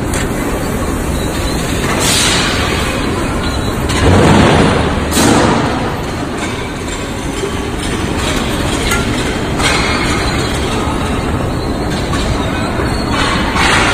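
Factory machinery running around a heating tunnel's mesh-belt conveyor: a steady, loud, noisy rumble, with louder surges about four and five seconds in.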